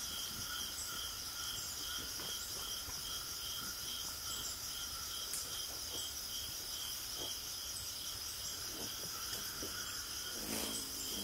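Insects chirping: a steady high buzz with a regular chirp about three times a second. A crow caws near the end.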